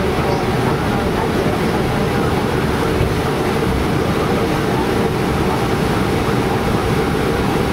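Steady cockpit noise of an Airbus A321 taxiing, a constant rumble and hum that holds at one level throughout.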